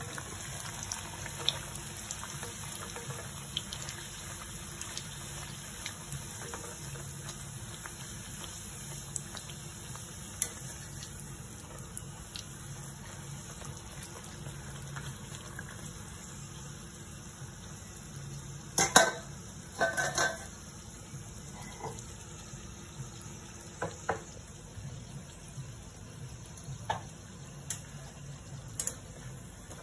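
Maida puri (luchi) deep-frying in hot oil in a kadai: a steady sizzle while it is gently pressed down with a wire-mesh skimmer to make it puff. A few sharp clinks of metal utensils break in, the loudest a quick cluster about nineteen to twenty seconds in.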